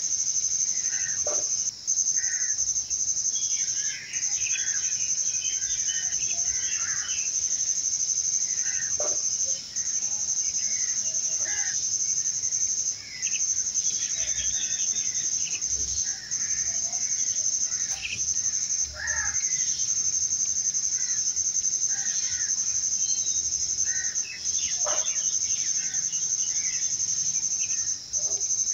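Insects trilling in one steady high drone that breaks off briefly every few seconds, with birds chirping and calling in short scattered notes over it.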